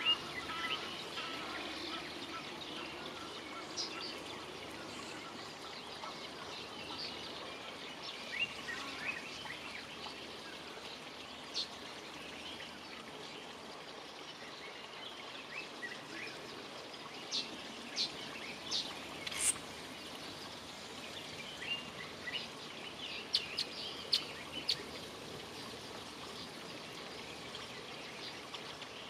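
Small birds chirping and tweeting in short, high calls scattered over a steady outdoor background hiss, busiest in the second half.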